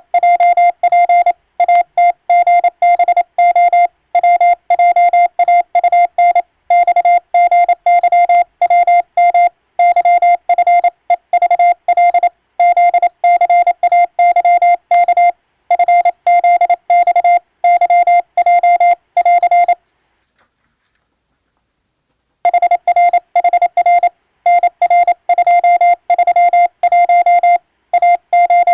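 Morse code sidetone from an electronic keyer: a single steady beep near 700 Hz keyed in rapid dots and dashes, sending a radio telegram in Latin-alphabet (English) Morse. The keying breaks off for about two and a half seconds roughly two-thirds of the way through, then resumes.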